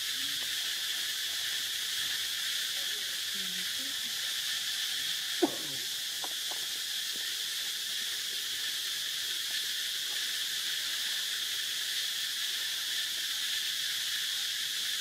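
Steady, high-pitched insect chorus, with one sharp click about five and a half seconds in.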